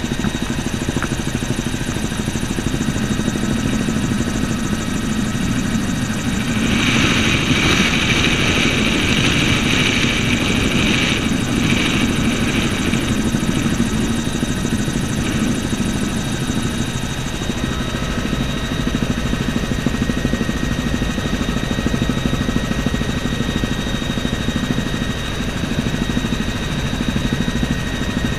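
Bell helicopter's engine and rotor running steadily in flight, heard from inside the cabin, with a thin high whine throughout. A louder hiss swells for about five seconds a quarter of the way in, then eases back.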